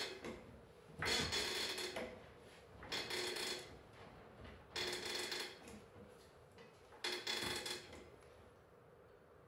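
Hydraulic floor jack being pumped by its handle to lift a car, four strokes about two seconds apart, each a noisy mechanical stroke lasting about a second.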